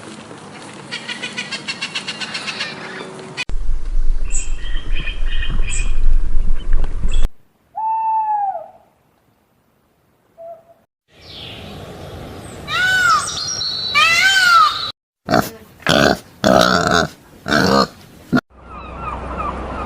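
A string of separate animal-sound clips cut one after another, mostly bird calls: a single arching call, then a run of repeated rising-and-falling calls and short bursts.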